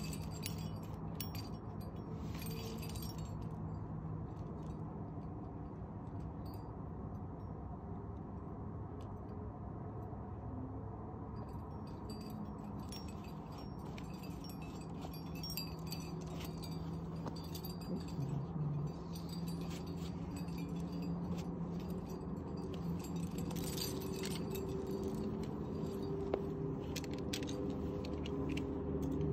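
Climbing gear clinking and jingling: metal carabiners and cams knocking together on a harness as the climber moves, in irregular clicks over a steady low hum.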